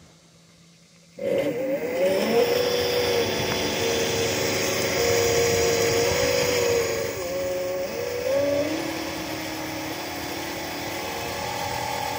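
Electric drive motor of a converted lawn tractor running and spinning its belt pulley, with a whine that rises and falls in pitch as the speed changes. It starts suddenly about a second in and stops near the end.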